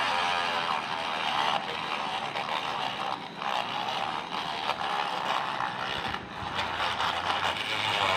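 Small electric motor of a homemade mini drill running, fitted with a drill chuck, with a steady whirring noise that wavers in level.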